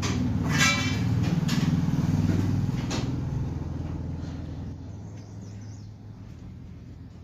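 A low rumble that fades over the second half, with a few sharp clicks in the first three seconds.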